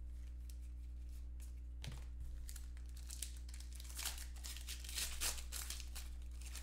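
Crinkling and rustling of trading-card packaging and cards being handled, in scattered short bursts that are busiest in the second half, over a steady low hum.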